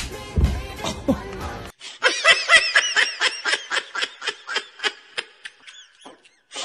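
Laughter, a fast run of short high-pitched giggles, starts about two seconds in, right after another sound cuts off abruptly, and thins out toward the end.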